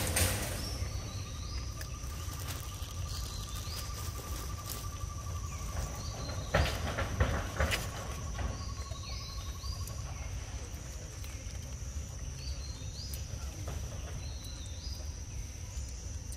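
Outdoor insect and bird ambience: a steady high-pitched insect drone, a pulsing insect trill that stops about ten seconds in, and short high chirps repeating every second or two. A few rustling clicks come near the middle.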